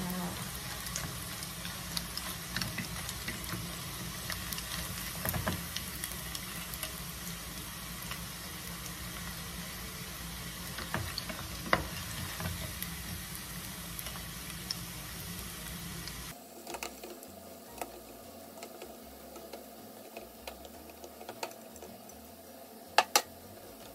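Dried fish strips deep-frying in hot oil in a small pot, a crackling sizzle with a wooden spatula stirring through them. About two-thirds of the way through the sizzle suddenly drops to a fainter one, and near the end there are two sharp knocks.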